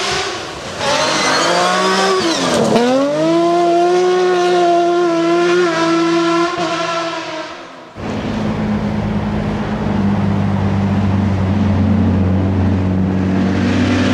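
Rally car passing at full throttle on a gravel stage, its engine note dipping sharply about three seconds in and climbing back, then holding high before fading. After a cut about eight seconds in, another rally car's engine approaches with a lower, steadier note that rises slightly near the end.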